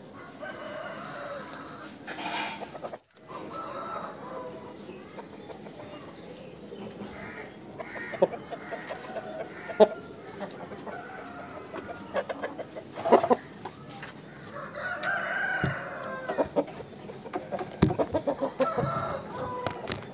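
Aseel roosters clucking, with one longer crow about three-quarters of the way through, and scattered sharp clicks.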